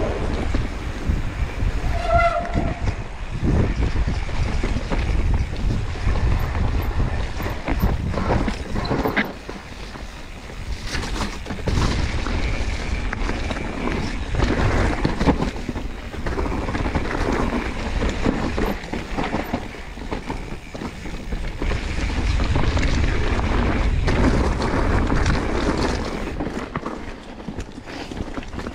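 Wind buffeting the mountain bike's camera microphone as it rides, with the tyres running over a wet, rough dirt trail and the bike knocking and rattling over bumps.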